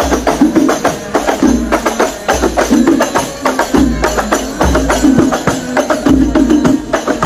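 Rebana frame drums of a hadrah ensemble played by hand in a fast, steady rhythm: many sharp slaps on the drumheads mixed with deep low beats.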